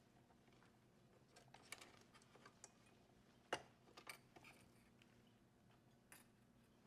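Scattered faint clicks and small plastic taps as cable connectors are worked loose and unplugged from the back of a touchscreen assembly. The sharpest click comes about halfway through.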